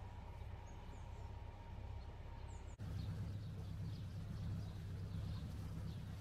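A motor yacht's engine hums steadily at low cruising speed while small birds chirp from the banks. About three seconds in, an edit cuts to a louder engine hum with quick, repeated bird chirps.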